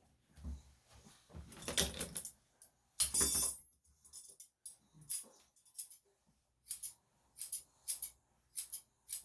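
Grooming scissors snipping a Yorkshire Terrier's coat: short, crisp metallic snips, coming regularly about every half second or so in the second half, after two louder rustling bursts of handling early on.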